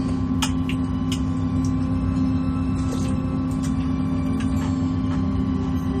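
A steady low hum made of several held tones, with light clinks of a metal spoon against a glass bowl every second or so as someone eats.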